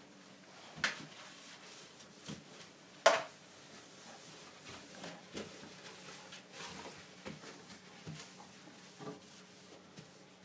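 Faint rubbing and rustling of kitchen roll and rubber-gloved hands wiping a stainless steel sink dry, with small scattered clicks and two sharp knocks, about a second in and about three seconds in, the second the loudest.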